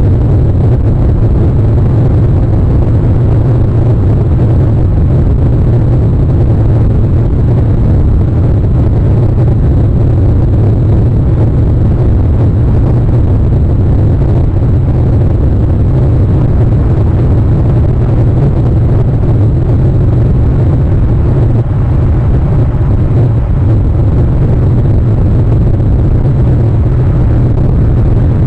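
Steady, loud low rumble of wind buffeting an outdoor camera microphone, with no distinct events.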